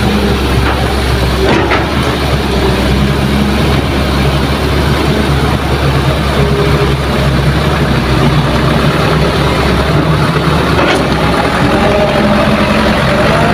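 Light dump truck's diesel engine running steadily at low speed as it drives slowly past, with the low engine note continuous.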